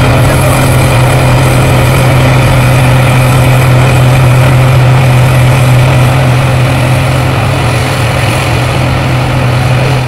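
Gleaner R40 combine harvester running while harvesting barley: a loud, steady machine drone with a strong low hum.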